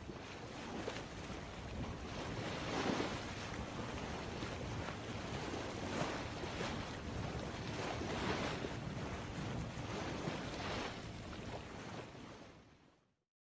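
Ocean waves washing in, a swell every two to three seconds, fading out near the end.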